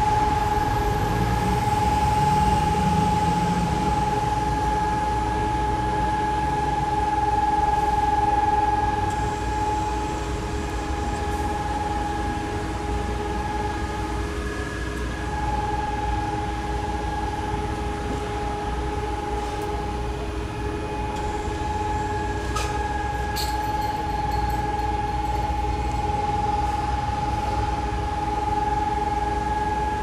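City street traffic noise with a steady hum that holds one pitch throughout, and a few faint high clicks a little past the middle.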